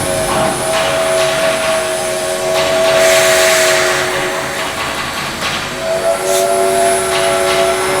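Locomotive air horn sounding a chord of several notes: one long blast, a break of under two seconds, then a second blast, over the rumble of a running train, with a burst of hiss in the middle of the first blast.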